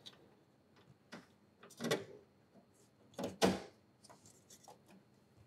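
Knocks and clicks of metal parts and mounting hardware being handled as the remote oil cooler is fitted to its bracket. There are a few short knocks, with the loudest about two seconds and three and a half seconds in.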